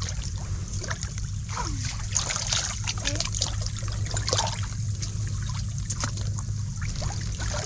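Hands groping through shallow muddy water for shellfish, giving small splashes and trickling water throughout, over a steady low hum.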